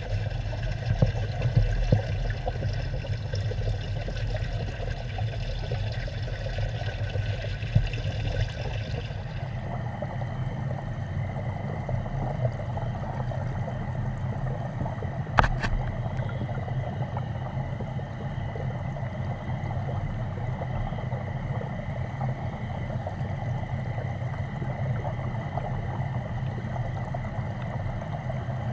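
Water streaming and bubbling into a fish tank from its inflow pipe, heard through an underwater camera: a steady rushing noise. The higher hiss drops away about a third of the way in, and there is one sharp click about halfway.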